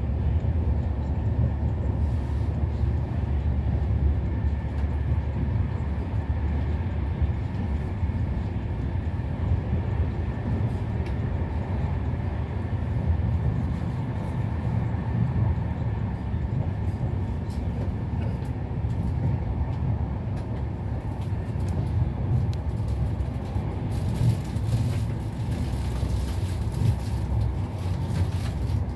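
Steady rumble and rail noise of a moving InterCity passenger train, heard from inside the carriage. It turns hissier near the end.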